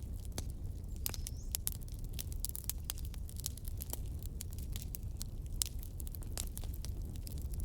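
Firewood logs burning, crackling with irregular sharp snaps and pops over a low steady rumble, with a faint short whistle from the wood about a second in.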